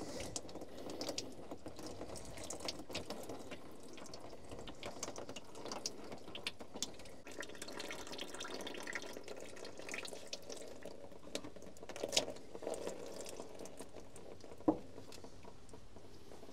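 Old engine oil trickling and dripping from an opened oil filter housing into a bucket, with scattered light clicks and one sharp knock near the end.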